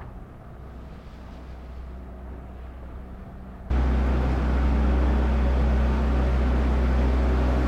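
Steady low mechanical hum of onboard machinery aboard an IMOCA racing yacht, a few even low droning tones over a noisy hiss. About three and a half seconds in it jumps suddenly much louder and then holds steady.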